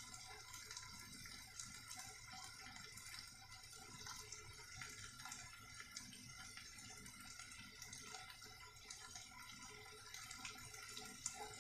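Near silence: faint simmering of a spiced chickpea curry in the pan, with a few soft ticks.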